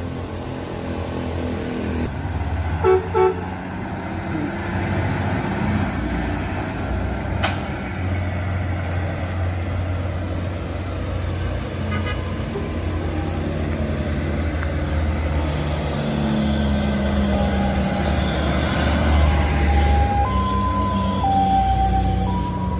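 Heavy trucks and a bus driving past, their engines giving a steady low rumble that builds toward the end. A horn gives two short toots about three seconds in. Near the end, a multi-tone musical bus horn plays a stepped tune of several notes.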